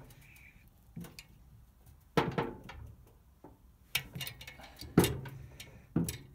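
Hand tools clinking on a Citroën 2CV cylinder head: a 10 mm spanner and screwdriver working the rocker-arm adjuster and locknut to reset a valve clearance, with feeler gauges handled. About five sharp metal clicks spread over the few seconds, the loudest about two and five seconds in.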